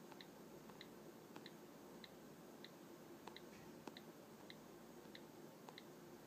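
Faint keyboard click sounds from an iPad 2's on-screen keyboard, about two short ticks a second, as 'y' and 'return' are tapped in turn.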